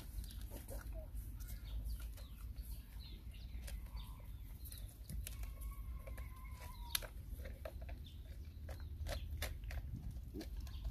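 Puppies eating rice from a plastic tray: scattered clicks and smacks of chewing and lapping. A faint bird or chicken call is heard about five seconds in.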